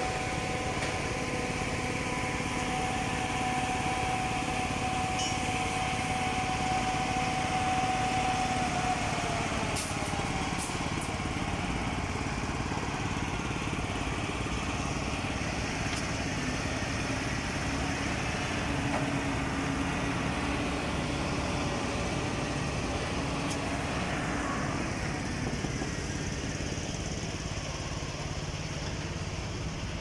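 Heavy construction machinery running: a steady engine drone with a high whine. The whine slides down in pitch about nine to ten seconds in, and a lower hum carries on after.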